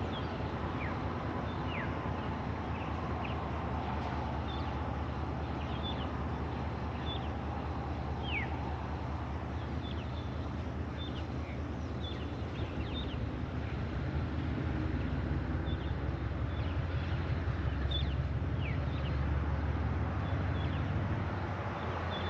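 Diesel locomotives at the head of a slow-moving freight train, a low steady engine hum that grows louder for several seconds past the middle. Many short, downward-sliding bird chirps sound over it throughout.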